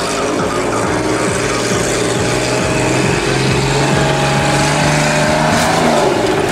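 A stunt vehicle's engine running loudly, its note climbing slightly in the second half.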